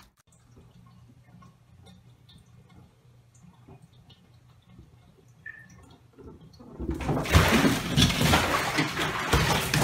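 Faint low hum with a few small ticks, then about seven seconds in a cat splashing and scrambling in a bathtub of water, loud and noisy.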